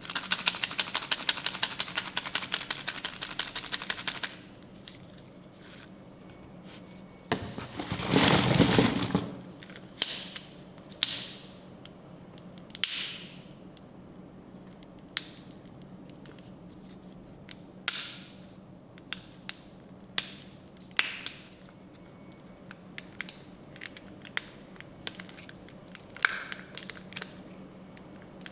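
Close-miked handling of candy and toy packaging with no talking. It opens with a rapid rattling run of clicks for about four seconds, then a loud rustling burst about eight seconds in, then scattered sharp clicks and short crinkles.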